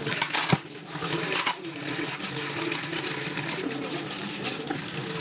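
Tap water running into a stainless steel kitchen sink as a dish and hands are rinsed under it, settling into a steady flow about two seconds in. A single sharp knock sounds about half a second in.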